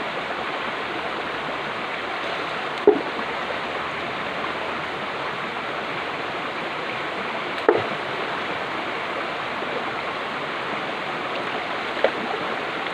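Stream water rushing steadily over rocks, with three brief sharp sounds standing out, about three, eight and twelve seconds in.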